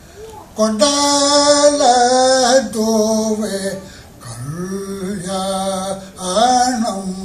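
A man singing, holding long notes that bend up and down in pitch, in several short phrases with brief breaks.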